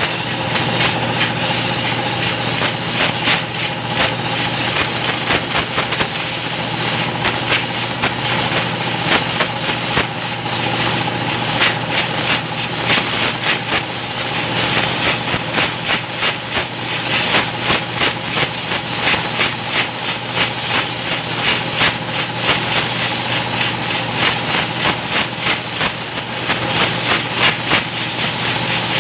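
Compressed air blown through a truck's paper air filter to clean out the dust, hissing in rapid, uneven pulses over a steady mechanical hum.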